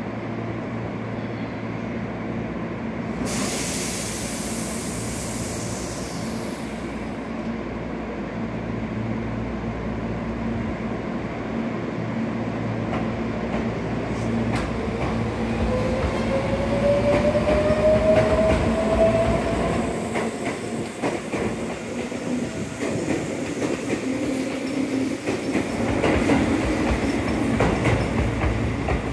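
Tobu 8000-series electric commuter train pulling out of the station. A loud hiss of air comes about three seconds in, then the traction motors whine, rising in pitch as the train gathers speed, with the clickety-clack of wheels over rail joints as the cars roll past.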